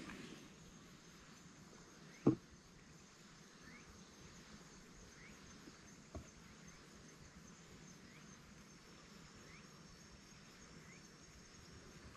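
Faint outdoor ambience: a steady high insect trill with a soft rising chirp about every one and a half seconds, and one sharp knock about two seconds in.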